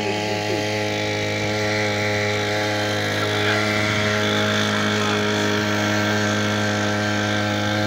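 Petrol brush-cutter engine running at a steady speed and pitch, driving an outboard propeller attachment that pushes an inflatable boat along.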